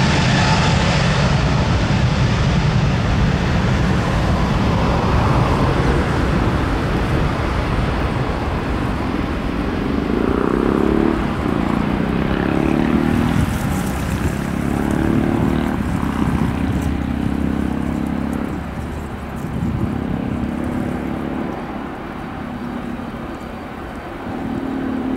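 Airbus A321neo's Pratt & Whitney PW1100G geared turbofan engines running at high power as the jet rolls away down the runway: a steady jet roar that slowly fades, with a wavering hum from about ten seconds in.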